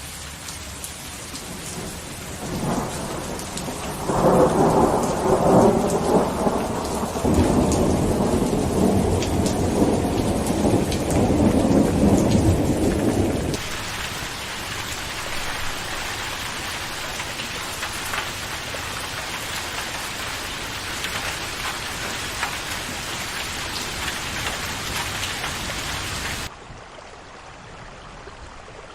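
Steady rain with a long rolling thunder rumble that builds a few seconds in and lasts about ten seconds. Rain alone follows, then cuts abruptly to softer rain near the end.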